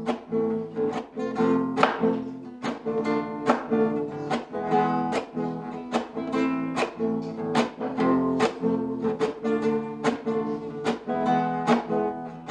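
Acoustic guitar strummed in a steady rhythm, chords ringing at about two strokes a second: the instrumental intro of a song.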